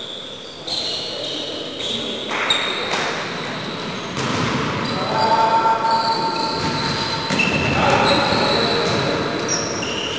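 Live sound of an indoor volleyball rally in a sports hall. The ball is struck with sharp thuds several times, and sneakers squeak briefly and repeatedly on the court floor.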